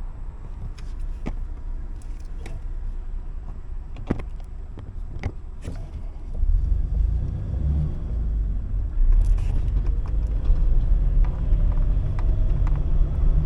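Car running, heard from inside the cabin: a low rumble with scattered clicks, growing louder about six seconds in.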